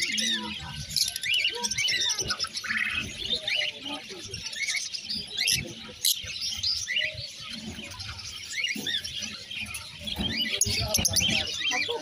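Caged lovebirds chattering: a continuous stream of short, high chirps and squeaks from several birds at once.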